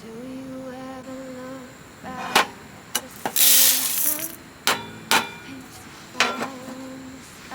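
Several sharp metallic clinks and knocks, about five in all, each with a short ring, and a noisy rush about a second long between them, over soft background music.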